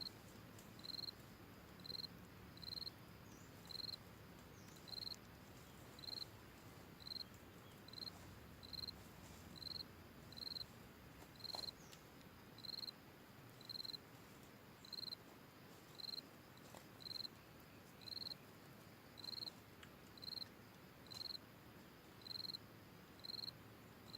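A forest insect chirping: short, high chirps on one steady pitch, evenly repeated about once a second.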